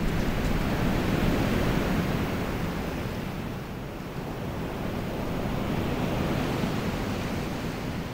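Wind blowing through woodland trees: a steady rushing noise that eases off near the end.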